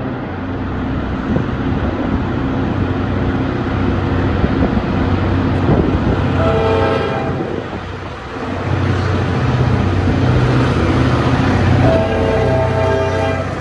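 Norfolk Southern diesel freight locomotive's air horn blowing for a grade crossing: a short blast about six seconds in and a longer blast near the end. Underneath runs the low rumble of the approaching diesel engines, which grows louder in the second half.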